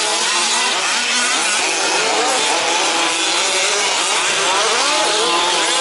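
Several 1/5-scale RC trucks' small two-stroke petrol engines running together, a continuous high buzz of overlapping whines that rise and fall as each truck revs and backs off.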